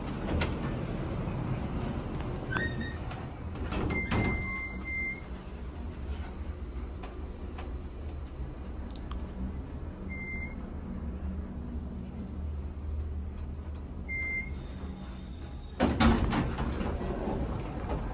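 Otis elevator car riding with a steady low hum, and a few short high electronic beeps along the way. Near the end the car doors slide open with a loud rush of noise.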